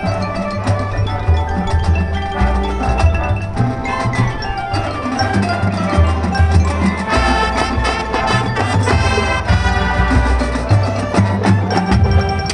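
High school marching band playing live, with mallet percussion such as marimba and bells prominent over sustained low brass and drum notes.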